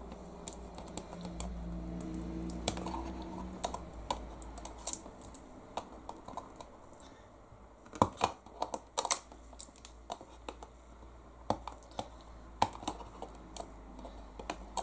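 Small clicks and taps of fingers and fingernails handling a plastic mounting plate and double-sided foam tape, scattered and irregular, with a quick cluster of sharper clicks about eight seconds in.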